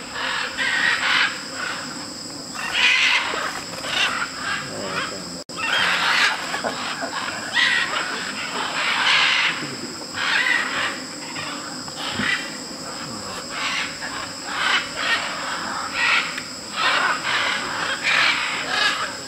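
A large mixed flock of macaws (scarlet, red-and-green and blue-and-yellow) calling, with harsh, overlapping squawks and screeches coming in irregular bursts. A steady, high-pitched insect drone runs underneath.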